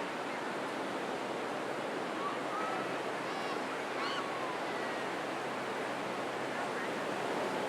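Crowded public beach ambience: a steady wash of ocean surf with faint distant voices of beachgoers, a few calls rising briefly out of it about three to four seconds in.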